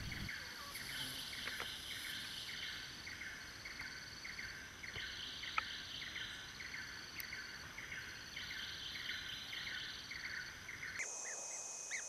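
Tropical forest ambience of calling insects: a short chirp repeated about three times a second, over a higher buzzing that comes and goes. Near the end it switches to a steadier, higher insect hiss.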